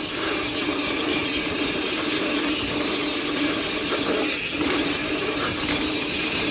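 Yeti SB150 mountain bike riding down a dirt trail: the rear hub's freewheel clicks fast while coasting over steady tyre and trail noise.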